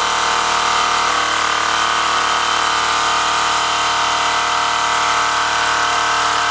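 Wilesco D22 toy twin-cylinder steam engine running steadily on live steam, just after its throttle is opened, driving its line shaft. The sound is an even, unbroken run: a set of steady tones over a hiss of steam.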